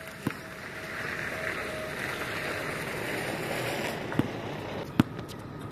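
A basketball bouncing on an outdoor hard court: three sharp thumps, one just after the start and two near the end, the last the loudest. Under them is a rushing noise that swells for a few seconds in the middle.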